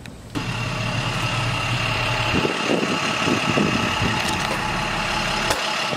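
Box delivery truck's engine idling steadily, a low hum with a steady high whine over it. Faint voices come in around the middle.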